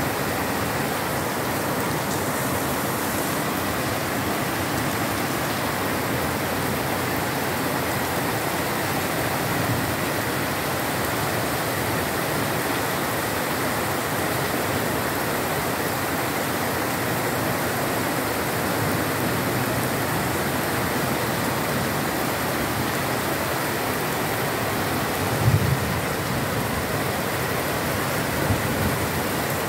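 Heavy rain pouring down onto a wet street, a dense, even hiss without a break.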